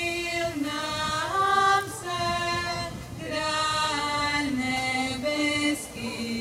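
Small group of women singing a slow folk song unaccompanied, in long held notes that step up and down in pitch, with brief breaths between phrases.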